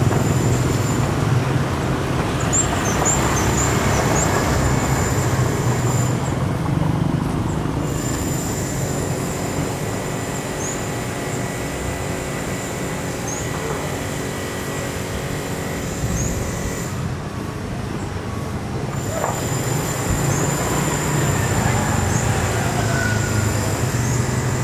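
Street traffic: motorbikes and cars passing, with engine rumble that is strongest at the start and again near the end. Thin high chirps sound on and off throughout.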